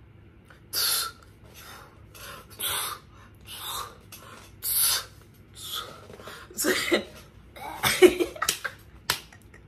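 A woman breathing hard: a string of loud, breathy huffs about a second apart, turning into voiced, laughing breaths near the end. She says she is getting lightheaded.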